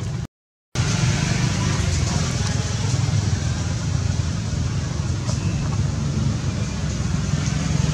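Steady low rumble of outdoor background noise, broken by a brief dropout to silence just after the start.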